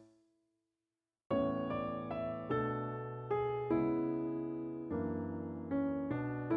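Background music: the previous track dies away, about a second of silence follows, then a gentle electric piano piece begins, with a new chord struck every second or less.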